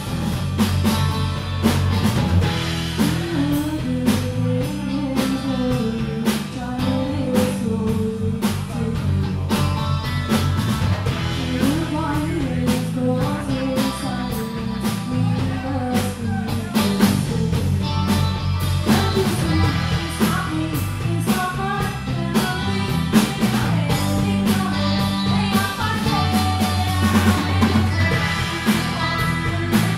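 A live rock band playing: a singer over electric guitar and a Sonor drum kit keeping a steady beat.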